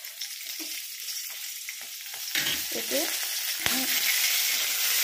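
Green chillies sizzling in hot oil in a wok; the sizzle grows louder a little past two seconds in, with a single sharp click shortly after.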